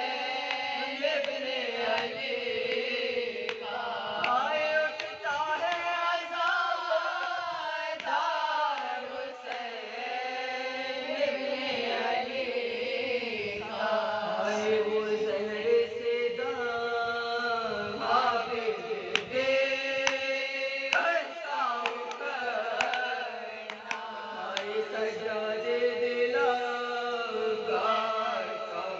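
A small group of women singing a marsiya, an Urdu elegy of mourning, together in a slow chant with no instruments.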